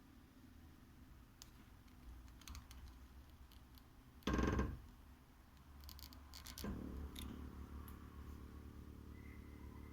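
Heating radiator making odd noises: scattered ticks and clicks over a low hum, a short loud rushing burst a little after four seconds in, and a steady multi-pitched hum that sets in near seven seconds.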